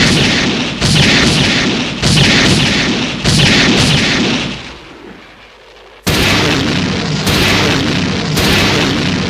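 Kiryu Mechagodzilla weapon-fire sound effect: a rapid series of heavy booming shots that dies away, then a second volley starting about six seconds in, at roughly two shots a second.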